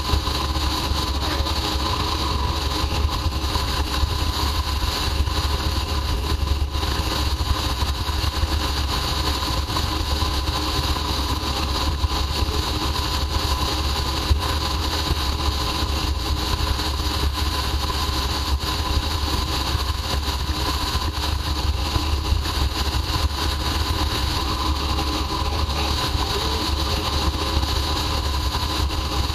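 Royal Enfield Himalayan's single-cylinder engine running steadily at highway cruising speed, heard with wind rushing over the bike-mounted microphone.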